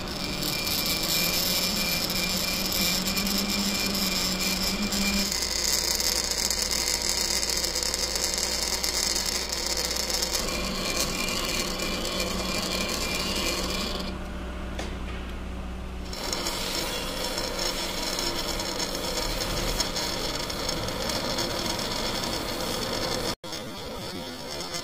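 Manual metal lathe running while a single-point tool cuts a thread along a brass bolt: steady mechanical noise of the machine and cutting, changing abruptly at several edits, with a brief dropout near the end.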